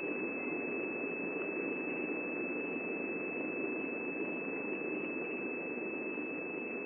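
A steady high-pitched whine holding one pitch over a constant background hiss, with no distinct sounds standing out.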